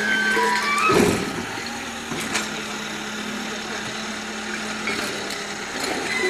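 A vehicle engine idling with a steady low hum under scattered street voices. A brief louder sound comes about a second in, and there are a few light clicks.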